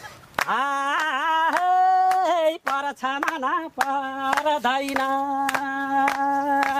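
A voice singing a wordless tune in long held notes with small bends, over a run of sharp clicks keeping a steady beat.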